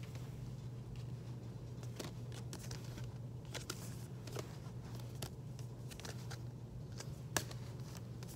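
Stiff paper photo cards being handled and shuffled: light rustles and scattered taps, with one sharper tap about seven seconds in, over a steady low hum.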